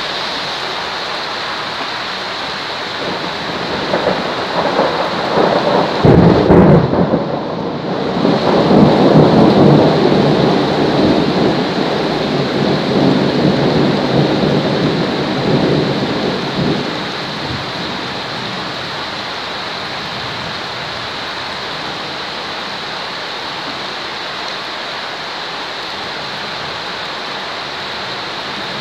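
Steady heavy rain, with a long roll of thunder that builds about four seconds in, is loudest a few seconds later and rumbles away by about the middle, leaving the rain alone.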